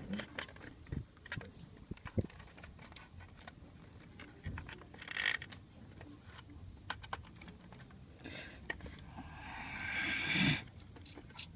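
Scattered clicks and knocks of small parts being handled while working on a paper shredder, with a short rustle about five seconds in and a louder rushing noise lasting about a second and a half near the end.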